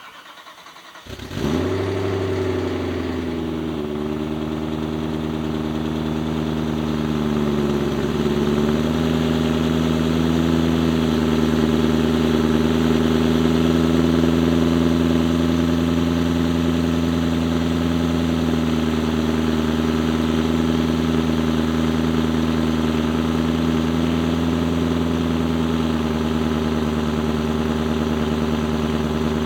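BMW E90 M3's S65 V8 started up: the starter cranks for about a second, the engine catches with a brief rev flare, and its idle speed steps down twice over the next several seconds before settling into a steady idle.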